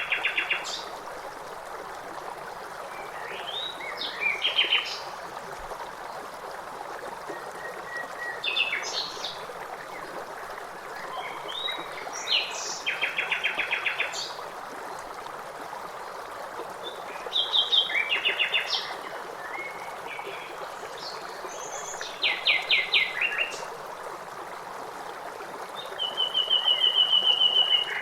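A songbird sings short phrases that end in a fast trill, one about every four to five seconds, over the steady rush of a stream.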